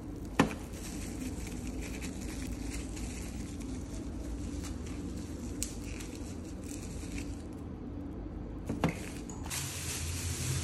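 Plastic packaging wrap rustling and crinkling as it is handled, with a sharp knock about half a second in and a smaller one near the end. The rustle grows louder in the last second as a plastic bag is pulled off the water dispenser.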